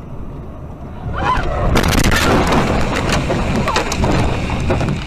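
Vehicle crash heard from inside the cab. Steady road noise swells about a second in. Just under two seconds in, a loud jumble of crashing impacts, crunching and rattling breaks out and keeps going, with many sharp knocks.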